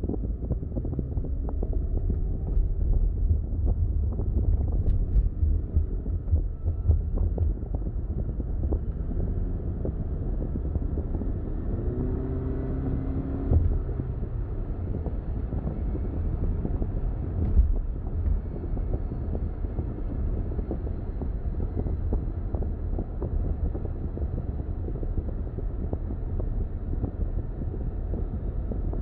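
A car driving: steady low road rumble with wind noise, a faint pitched hum around the middle, and two brief knocks about halfway through.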